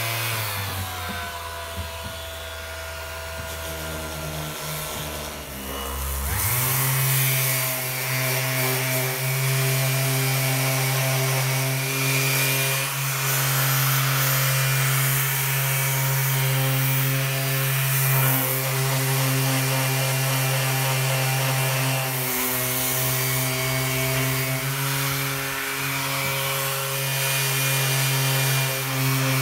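Electric random orbit sander running, its disc grinding rust and mill scale off a steel hatch. The motor hum steps up in pitch about six seconds in, then holds steady under the hiss of sanding.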